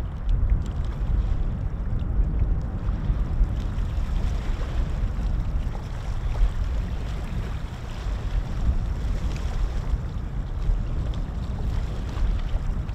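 Wind buffeting the microphone: a steady low rush with uneven gusts and no clear engine tone.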